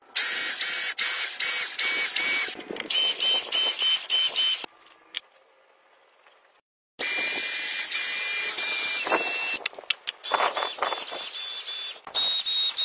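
Small electric motor-driven pump of a homemade hydraulic system running, a loud hiss with a high whine that chops on and off several times a second. It drops out for about two seconds near the middle and then starts again.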